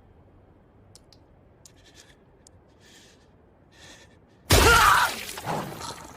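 Faint small clicks and rustles over a quiet background, then about four and a half seconds in a sudden loud hit with a wavering pitched ring that fades over a second or so: an anime fight sound effect.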